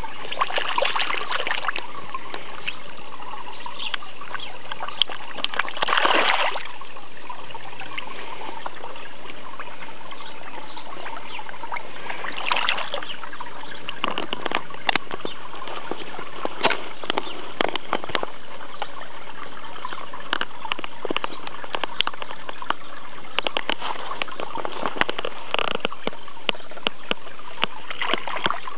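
Pond water trickling steadily, with many small splashes at the surface as koi feed from a hand in the water. There is a louder splash about six seconds in.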